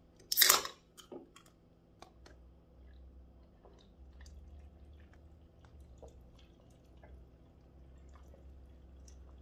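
A drink can's tab is cracked open with a short, loud hiss about half a second in, the loudest sound here. Then the drink is gulped straight from the can, with faint swallowing and liquid sounds.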